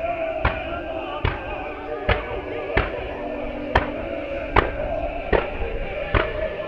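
Music with long held tones and a sharp, steady beat a little more than once a second.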